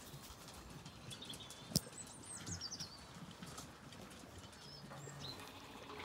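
Songbirds singing, with a quick descending trill about two seconds in, over light footfalls and shuffling of farm animals on soft ground. One sharp knock comes just before the trill.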